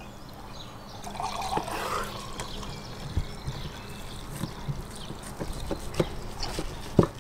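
Red wine poured from a clay jug into a drinking glass, with scattered knocks of a knife slicing meat on a wooden cutting board; the sharpest knock comes near the end.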